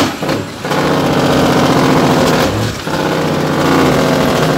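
Heavy truck's diesel engine pulling under load, heard from inside the cab. It drops off briefly near the start and again about halfway through, as between gear changes.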